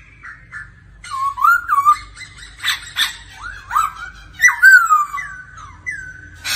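Black-throated laughingthrush singing: a run of loud, slurred whistled phrases that glide up and down, broken by a few harsher, rasping notes, starting about a second in.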